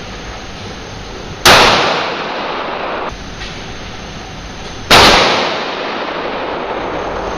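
Pistol fired twice, about three and a half seconds apart, each sharp shot trailing off over about a second.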